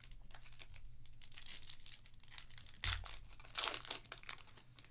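Plastic wrapper of a Panini Elite Extra Edition baseball card pack being torn open and crinkled by hand, with louder crackles about three and three and a half seconds in.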